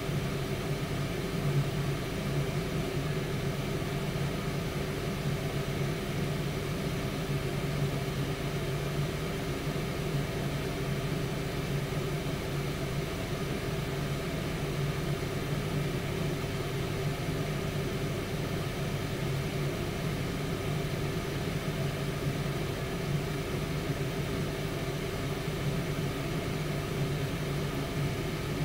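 Tower air fryer oven running: a steady fan whir over a low hum.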